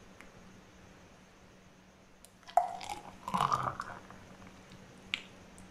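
Thick mango juice poured from a steel bowl into a drinking glass: after a quiet start, a sudden knock, then about a second of wet glugging and splattering, and a small click near the end.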